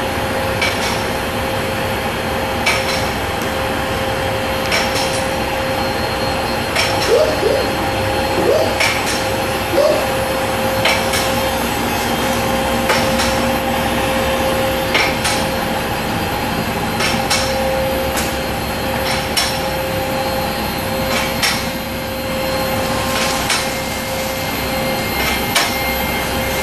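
Stertil Koni ST-1072 mobile column truck lift's electro-hydraulic pump units running with a steady hum while raising a truck, with a sharp click about every two seconds.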